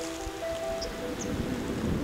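Soft background music of held notes that fades out about halfway through, giving way to a steady low rushing noise.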